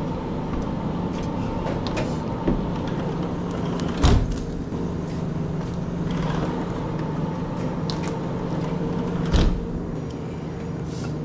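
Steady hum with a few sharp knocks and clatters as a glass-door drink cooler is opened and shut and soda cans are handled. The loudest knocks come about four seconds in and again after about nine seconds.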